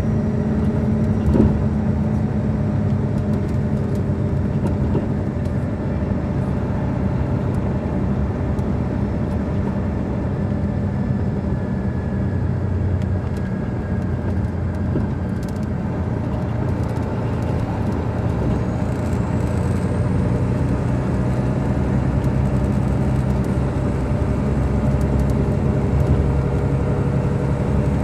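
Detroit Diesel Series 60 inline-six diesel of a 2002 MCI D4000 transit coach idling steadily, with one short click about a second and a half in.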